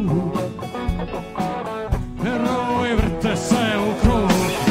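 Live rock band playing, with guitar, bass and drums under a male lead voice singing in Croatian.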